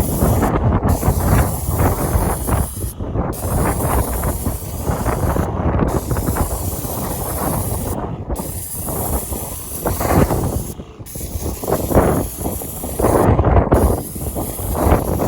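Wagner Control Pro 130 airless sprayer spraying fence stain with a steady high hiss that stops briefly about every two and a half seconds, over heavy wind rumble on the microphone.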